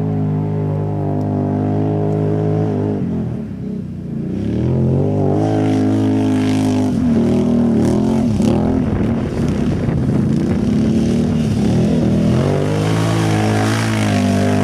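Can-Am Renegade 800X ATV's V-twin engine revving under hard throttle. It holds steady revs at first, dips briefly about three and a half seconds in, then rises and falls in repeated surges. From about five seconds in, a hiss of spinning wheels throwing mud runs under the engine.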